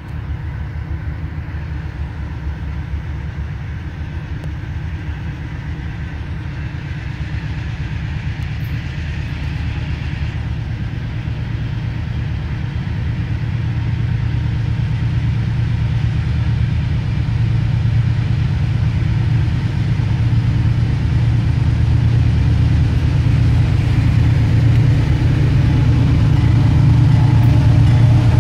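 Diesel freight locomotives approaching, a low engine drone that grows steadily louder as they near. A faint high steady tone joins near the end.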